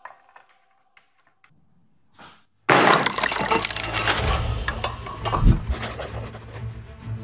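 Near silence with a few light clicks, then about three seconds in, a power tool cutting wood cuts in abruptly: a loud, rough noise over a steady motor hum.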